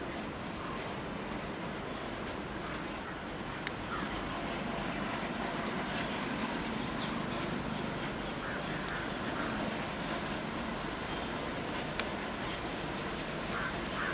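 Birds chirping: short high calls repeated every second or so, over a steady low background rumble.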